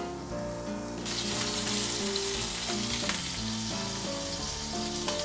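Grilled mackerel sizzling hot from the grill: a steady crackling hiss that starts abruptly about a second in, over soft background music.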